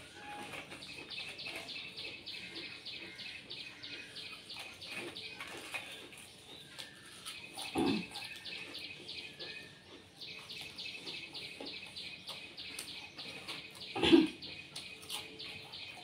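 A bird chirping rapidly and evenly in the background, about six chirps a second, in bouts with a pause midway. Two louder short sounds stand out, about eight and fourteen seconds in.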